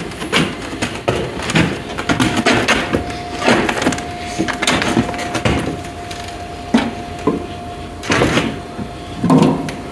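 Irregular knocks and clunks, about nine spread unevenly, of engine parts being handled and set down during a cylinder head installation, over a steady tone.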